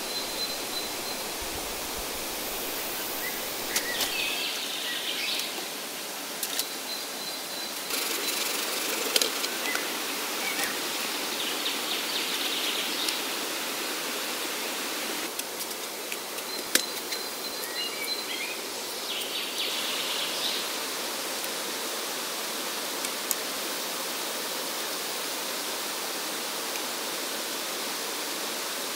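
Steady outdoor hiss like running water in the jungle, with a few sharp knocks and clicks as bamboo is handled and split with a knife, and faint high chirps now and then.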